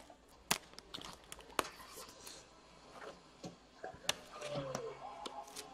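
Trading cards being handled and flipped through, with scattered light clicks and taps of card stock.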